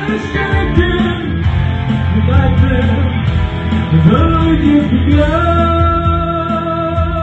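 Live rock band playing, with electric bass and electric guitar. A note slides up about four seconds in, and long held notes follow.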